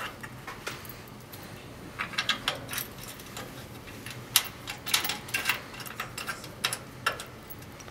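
Faint, irregular metallic clicks and taps of a screw being fitted and turned by hand into a steel bracket on a printer stand.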